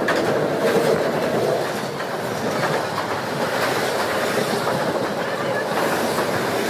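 Pakistan Railways passenger train pulling into the platform: the diesel locomotive passes, then the coaches roll by close at hand, a steady rumble and rattle of wheels on track.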